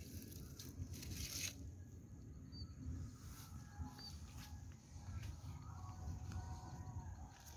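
Outdoor field ambience: a steady low wind rumble on the microphone, a short rustle of handling about a second in, and faint bird calls.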